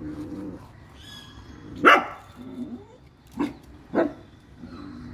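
Dog barking in alarm at monkeys: three sharp barks, the first about two seconds in and the loudest, then two more half a second apart about a second and a half later. A low drawn-out growl sounds at the start and again near the end.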